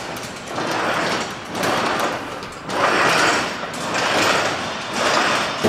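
Wheeled steel tripod wing stand being shifted across a concrete floor, making a rolling, scraping noise that comes in about five pushes, each under a second long and roughly a second apart.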